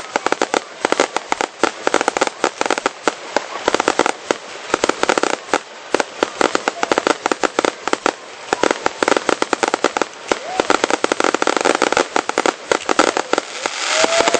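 Fireworks display: a dense, continuous barrage of aerial shell bangs and crackling reports, many each second.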